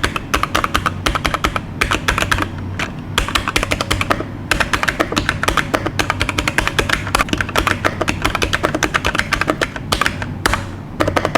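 Typing on a UGREEN 70% wired mechanical keyboard with red linear switches: fast runs of keystroke clacks with a few short pauses.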